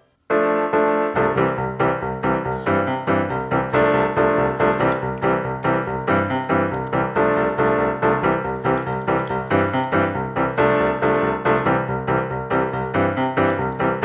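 Background piano music: a keyboard tune of quick, evenly spaced notes, starting after a moment's silence at the very beginning.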